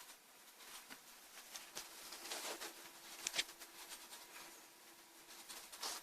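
Faint handling noises from work on an opened laptop: light clicks and short scratchy scrapes, with a couple of sharper ticks about two and a half and three seconds in.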